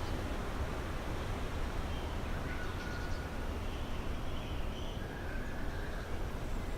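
Steady wind noise with a low rumble, and a few faint, short bird calls in the middle.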